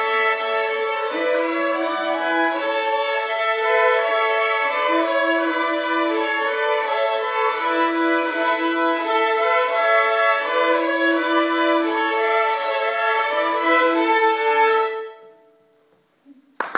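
Violin playing a melody of long, sustained bowed notes. The piece ends about fifteen seconds in, and the last note dies away into near silence.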